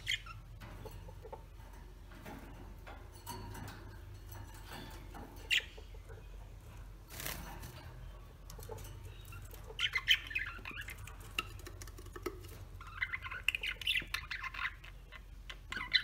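Budgerigars chirping and chattering in short bursts, busiest in two spells about ten and thirteen seconds in, with scattered light clicks over a steady low hum.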